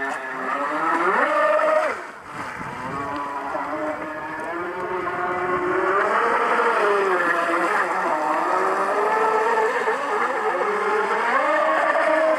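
Motors of a Techtoys V24 radio-controlled powerboat whining as it runs across the water, the pitch rising and falling as the throttle is worked. The pitch falls away briefly about two seconds in, then climbs back.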